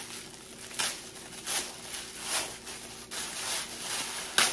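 Wrapping material crinkling and rustling in several short bursts as items are unwrapped and handled, with a sharp click near the end.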